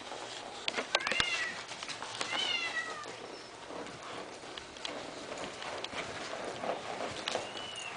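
A cat meowing three times, short high calls that rise and then fall in pitch, with scattered clicks and knocks underneath.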